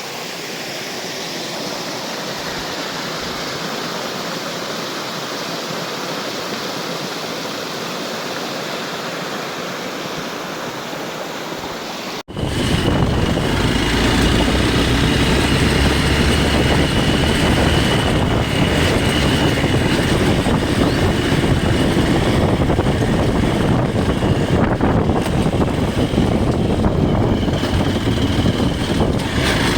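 Water rushing steadily down a small waterfall in a stream. About twelve seconds in it cuts to a motorcycle on the move, its engine running under heavy wind noise on the microphone.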